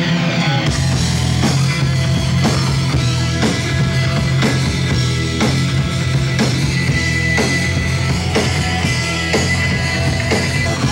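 Grunge rock music: electric guitar, joined by a drum kit less than a second in, with heavy drum hits about once a second.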